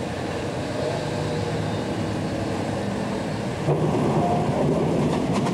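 Passenger train heard from on board: a steady rumble, then about two-thirds of the way in a louder running sound with a few sharp rail clacks near the end.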